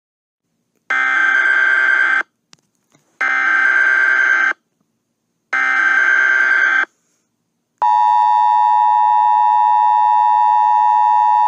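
Emergency Alert System tones: three identical bursts of the shrill SAME header data signal, each about a second long, then the steady two-tone EAS attention signal starting about eight seconds in.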